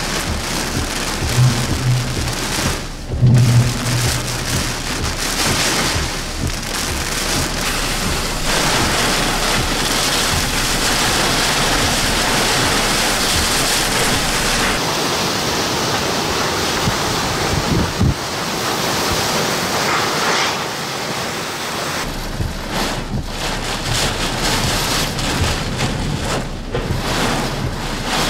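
Hurricane rain and gusting wind heard from inside a vehicle: a loud, dense rush of rain on the windshield and body, swelling and easing with the gusts. A brief low hum sounds twice in the first few seconds.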